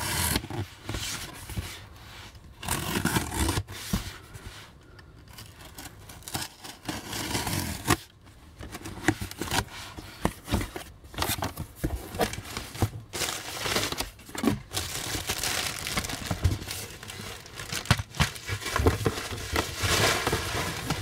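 A wrapped cardboard parcel being cut and torn open by hand: irregular tearing and crinkling of paper and plastic wrapping, with scattered scrapes and knocks of cardboard.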